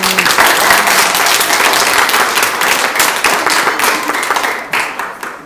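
Audience of children applauding: dense, rapid clapping that dies away near the end.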